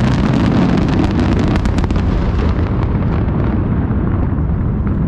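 Fireworks going off in a dense barrage: many sharp bangs and crackles over a heavy low rumble, thinning out after about two and a half seconds.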